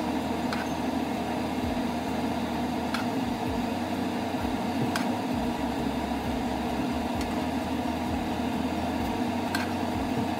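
Steady low mechanical hum of a running kitchen appliance or fan, with a few faint clicks scattered through it.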